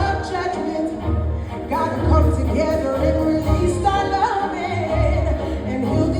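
Gospel-style song playing: a voice sings drawn-out notes that bend up and down, over bass and accompaniment.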